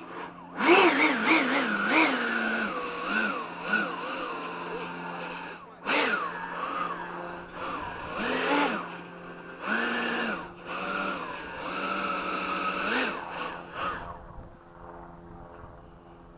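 Electric ducted fan of an RC jet run up on the ground in a series of throttle blips: a loud whine and rush of air that rises and falls again and again, with brief let-offs, then winds down near the end.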